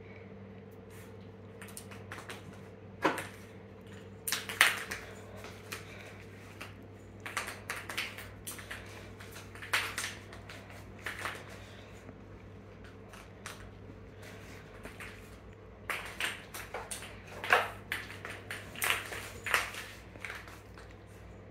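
Irregular taps and clatters of a cat toy being batted and dribbled across a hard floor by an American cocker spaniel, mixed with the dog's claws clicking on the floor, in scattered flurries over a steady low hum.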